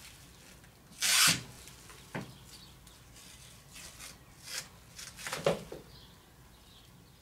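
3M plastic masking film crinkling and masking tape being handled at a tape-and-film dispenser, in several short rustling bursts, the loudest about a second in, with a sharp click a second later.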